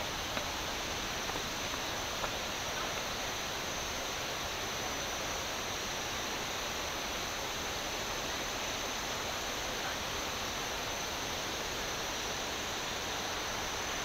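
Steady, even rush of flowing water from a forest stream and waterfall, unchanging throughout, with a couple of faint ticks near the start.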